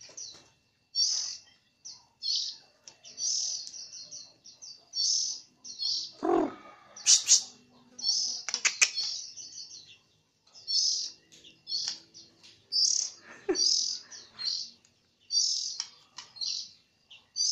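White-rumped shama singing loud, rapid bursts of high twittering phrases in a canary-like run, with a short pause a little past halfway.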